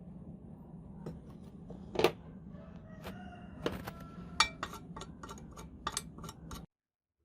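Small metal parts and tools knocking and clinking, one loud knock about two seconds in and then a quick run of clicks, some leaving short ringing notes, over a steady low hum. The sound cuts off suddenly near the end.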